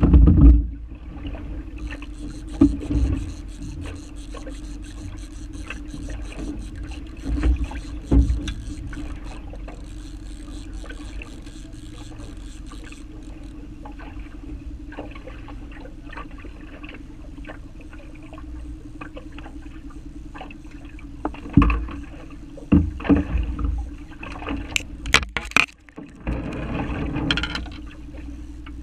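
Steady hum of a boat motor running at idle, with loud knocks and bumps against the aluminium hull. A fine, fast clicking runs from about two seconds in until about thirteen seconds in.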